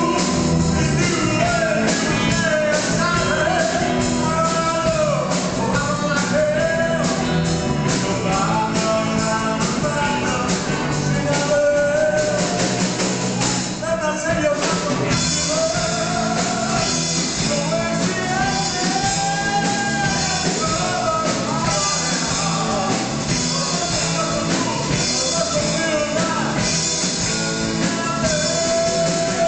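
Live band playing a dance tune on drum kit and electric guitar, with a wavering melody line over steady drum hits.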